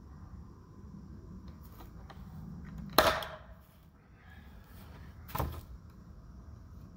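Ramset powder-actuated nail gun firing once about three seconds in, a single loud sharp crack with a short ring as it drives a nail through the 2x4 into the brick pillar's mortar joint. A second, quieter sharp knock follows a couple of seconds later.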